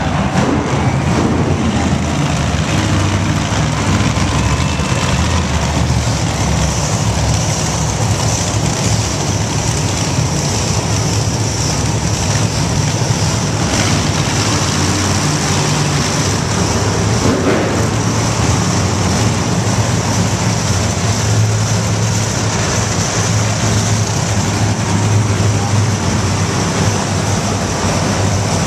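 Grave Digger monster truck's supercharged V8 engine running loudly and continuously, with no break in the sound.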